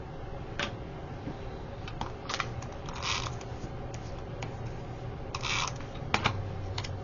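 Paper squares being handled and laid onto a scrapbook page: a few light taps and clicks, and two short paper rustles, about three and five and a half seconds in.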